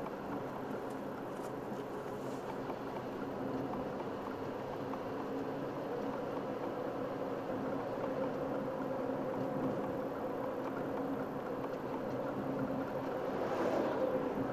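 Car cabin noise while driving: a steady engine hum under road and tyre rumble, slowly getting louder. Near the end an oncoming truck passes with a brief rising and falling rush.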